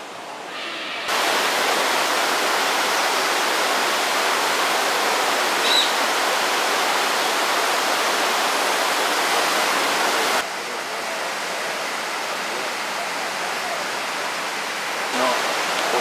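Steady rush of falling water, getting louder abruptly about a second in and dropping to a quieter rush about ten seconds in.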